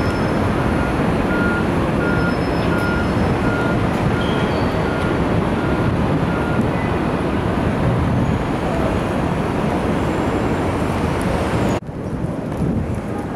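City street traffic as motorcade vehicles drive past, with a steady electronic beeping, about two beeps a second, that stops about seven seconds in. Near the end the traffic noise drops suddenly, then carries on quieter.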